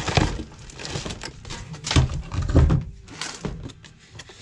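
Several dull thumps and knocks from handling parts in a small, enclosed space, the strongest a quarter second in and twice around the two-second mark, with lighter clicks and rustling between.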